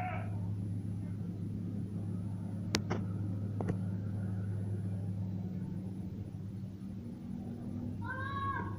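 A steady low mechanical hum, like an engine running, with two sharp clicks about three seconds in and a short high-pitched call near the end.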